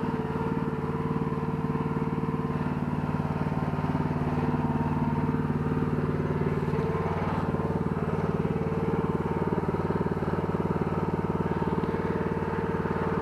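Small engine of an ATV backhoe outfit running steadily at a constant speed, its tone shifting slightly about four seconds in.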